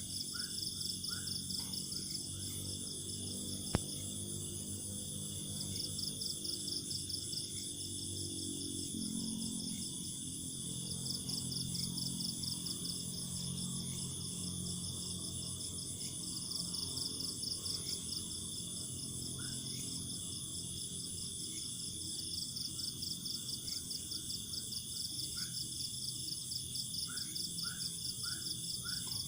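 Night chorus of crickets and other insects, a steady high trilling that swells in bouts every few seconds, with short chirping calls near the start and end. A low steady hum runs underneath, and a single sharp click sounds about four seconds in.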